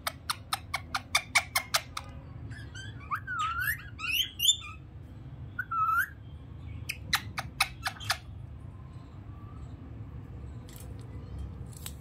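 Indian ringneck parakeet calling: a quick run of about nine short, sharp calls, then a few squawks that glide up and down in pitch, and a second run of sharp calls about seven seconds in.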